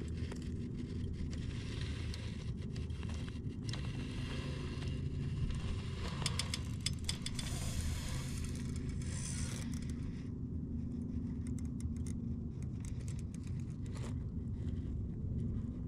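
Radio-controlled rock crawler's electric motor and geared drivetrain humming at crawling speed as it climbs rock, with scattered clicks and scrapes of tyres and metal parts against the stone.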